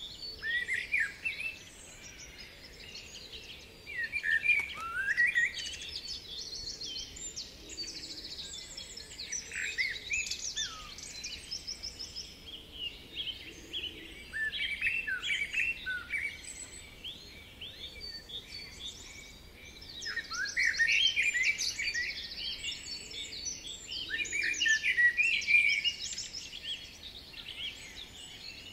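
Songbirds singing and chirping, several at once, their calls and quick trills overlapping in waves every few seconds.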